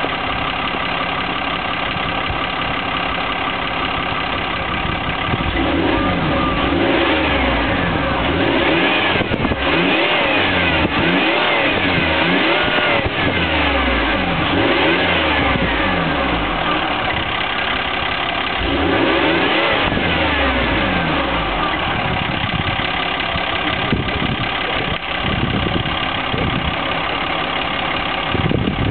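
Citroën C5's 3.0 V6 HDi diesel engine heard at the tailpipe of its stock exhaust: idling, then revved up and let fall back about half a dozen times, then settling back to idle.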